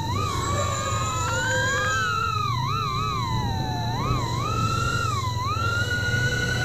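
Micro FPV quadcopter (75 mm frame) in flight, its motors and propellers giving a continuous whine that rises and falls in pitch with the throttle. It dips sharply several times in the middle and holds at a higher pitch near the end.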